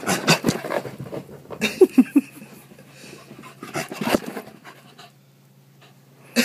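Corgi panting in quick, noisy breaths as it runs about on carpet, with a few short low grunts; the panting dies away about five seconds in.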